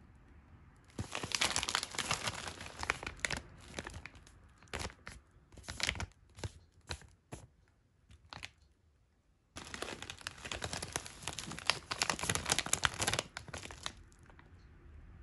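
Plastic snack bag crinkling as it is handled and turned over: two long bouts of dense crackling, about a second in and again near the middle, with scattered crackles between.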